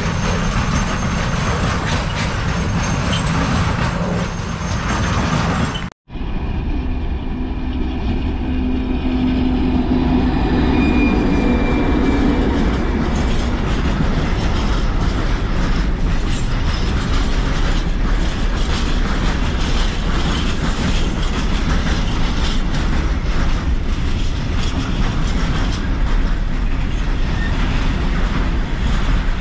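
Freight train wagons rolling past close by, their wheels clattering over the rail joints. About six seconds in the sound cuts out for an instant and comes straight back as a train rolling past.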